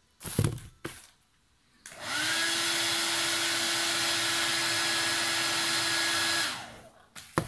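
A hand-held hair dryer is switched on about two seconds in, spins up and blows steadily for about four seconds, heating the bag's plastic zipper teeth to soften them, then is switched off and winds down. Short handling knocks come before and after it.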